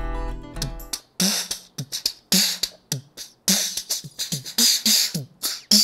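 Background music for about the first second, then a man beatboxing with his hands cupped over his mouth: repeated kick-drum-like thumps alternating with hissing snare and hi-hat sounds.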